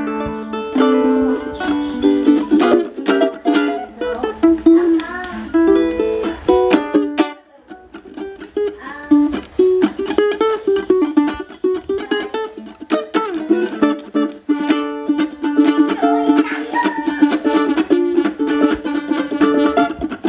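Solo ukulele played fingerstyle: a quick run of plucked notes and chords, with a brief pause about seven seconds in before the playing picks up again.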